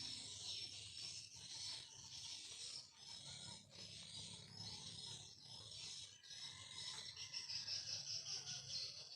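Swiftlets twittering: a dense, high, rasping chatter that grows louder about seven seconds in, over a faint low rumble.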